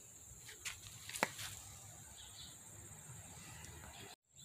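Faint outdoor background with a steady high-pitched hum and a couple of small clicks about a second in. It cuts out to total silence for a moment near the end.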